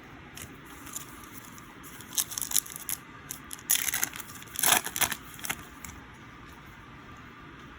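A foil trading-card pack being torn open and crinkled. It comes in a run of crackling rustles from about two to six seconds in, loudest near five seconds.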